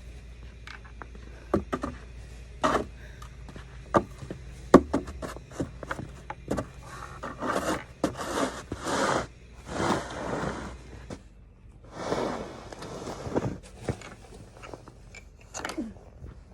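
Snow shovel scraping and knocking: a few sharp knocks at first, then a run of scraping strokes about a second long each, and a few more knocks near the end.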